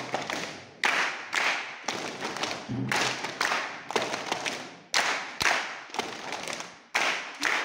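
Sharp hand claps in a steady rhythm, about two a second, each ringing out with a long echo in a reverberant hall.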